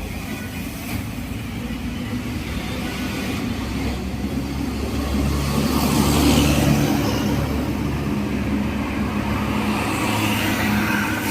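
A Mercedes-Benz OH 1626 tour bus's diesel engine running as the bus drives past. The sound builds to its loudest about six seconds in and then carries on steadily.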